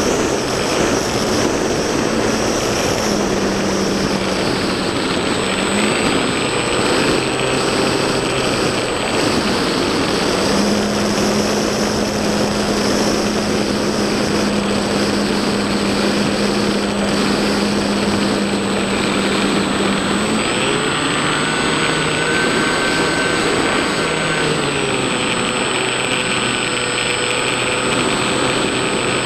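Small RC foam plane in flight, recorded by its onboard camera: a steady rush of wind over the airframe with the hum of its motor and propeller, whose pitch steps up and down several times as the throttle changes. A thin high whistle runs steadily underneath.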